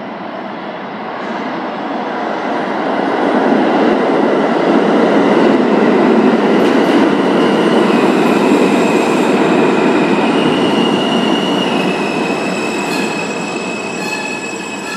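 New York City Subway R train pulling into an underground station: a rumble that builds to a peak around the middle, then high squealing from the wheels and brakes as it slows along the platform.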